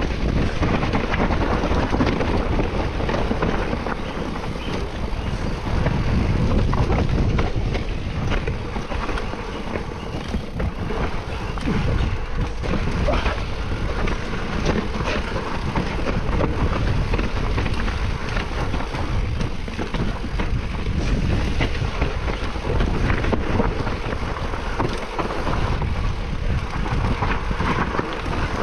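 Mountain bike ridden down a rough trail: wind buffets the microphone while the bike rattles and knocks over the ground without a break.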